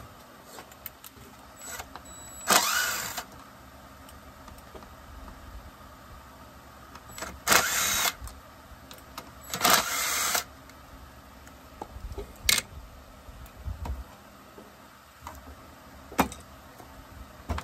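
A cordless drill/driver spinning in three short bursts, backing screws out of a Husqvarna 357 XP chainsaw during teardown, with a few sharp clicks and taps of tools and parts later on.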